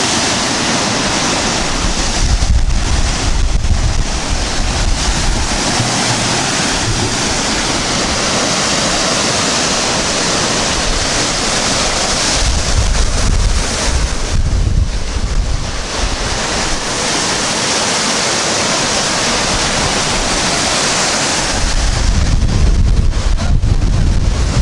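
Heavy storm surf on the Baltic Sea: waves breaking and washing up a sandy beach in a steady roar, with wind buffeting the microphone in gusts about two seconds in, around the middle and again near the end.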